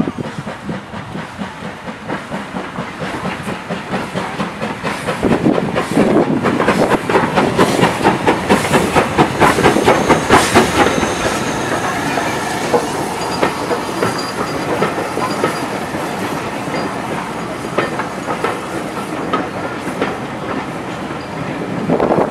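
A steam-hauled passenger train's coaches rolling past close by, their wheels clattering over the rail joints in a quick, steady rhythm that grows louder and is heaviest about a third of the way in. Near the end the working steam locomotive, LMS Black Five 45305, draws level with a louder burst of its exhaust.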